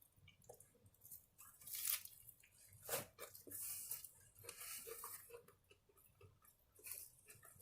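Faint close-up chewing and mouth sounds from eating a taco: irregular small clicks and crackly crunches, with a few louder crunches about two and three seconds in.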